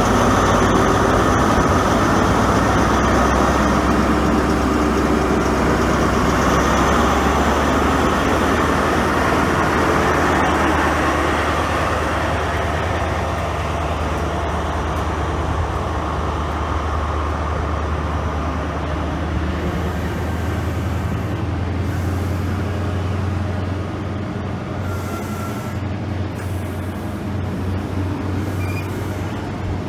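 A ScotRail Inter7City High Speed Train pulling out of the station, its diesel power car engines running under a dense rolling rumble. The rumble is loudest at first and fades gradually, leaving a steady low engine hum.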